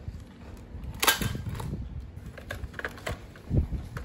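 Hard plastic gadgets handled and set down on a tiled floor: a scatter of sharp clicks and knocks, the loudest about a second in and a few more near the end.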